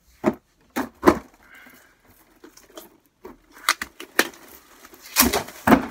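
Cardboard advent calendar box being picked up and handled, with several sharp knocks and scrapes against a surface.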